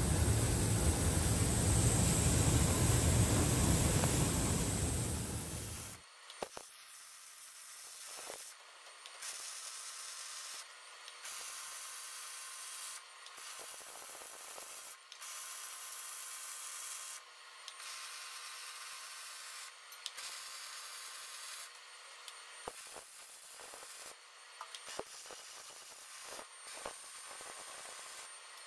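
A loud, steady roar stops abruptly about six seconds in. It is followed by a series of MIG welds on a steel frame: a hissing, sizzling arc in runs of a second or two, broken by short pauses between welds.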